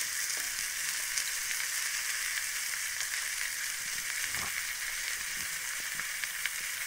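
Sliced onions and chopped cauliflower sizzling in hot oil in a steel wok, a steady frying hiss, with one faint knock about four seconds in.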